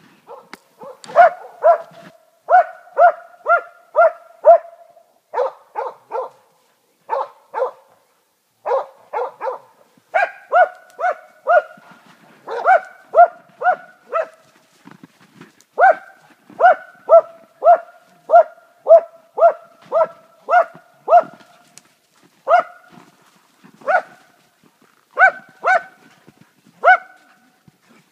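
Dog barking hard at a red deer it is holding at bay, in quick runs of four to six barks, about two a second, with short pauses between the runs.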